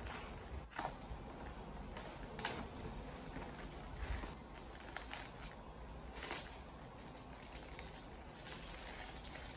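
Paper mailer bag crinkling as it is handled and opened by hand, then a plastic bag crinkling, as scattered short crackles.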